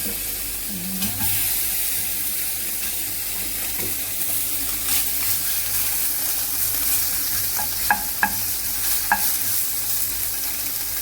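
Slices of Spam sizzling steadily as they fry in a pan, with a few short clicks about eight and nine seconds in.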